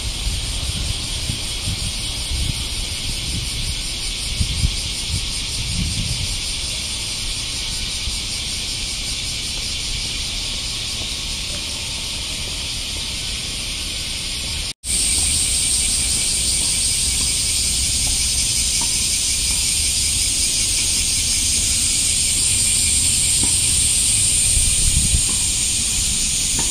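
Dense chorus of cicadas in the trees, a steady, loud, high-pitched buzzing hiss with fine pulsing. About halfway through it cuts out for an instant and comes back louder.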